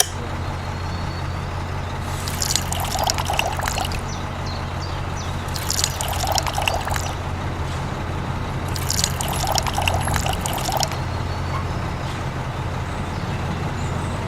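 A small electric motor humming steadily, with three bursts of liquid pouring and splashing, each a second or two long.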